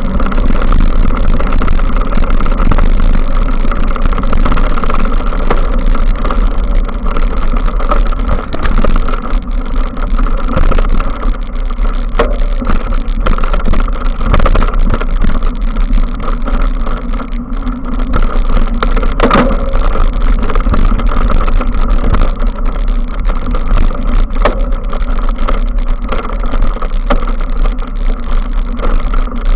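Mountain bike riding on a dirt trail, heard through an action camera's microphone: a steady rush of wind and rolling rumble and rattle, with a few sharp knocks from bumps, the loudest about two-thirds through.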